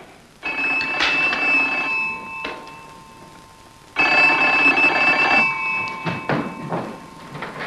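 Telephone ringing: two rings of about one and a half seconds each, roughly two seconds apart, with a few light knocks in between.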